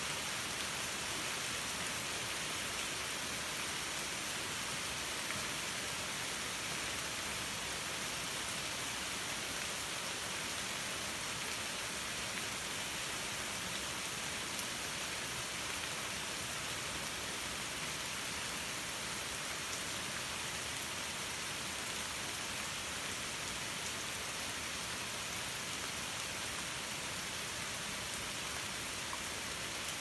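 Steady rain falling on the leaves of a wooded backyard: an even, unbroken hiss with a few faint drips standing out.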